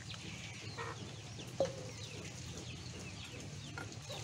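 Chickens clucking, with rapid short high chirps throughout over a steady low hum, and one sharper call about a second and a half in.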